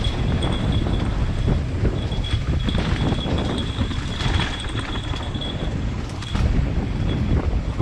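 Wind buffeting the microphone in a steady low rumble, with a thin high tone that cuts in and out.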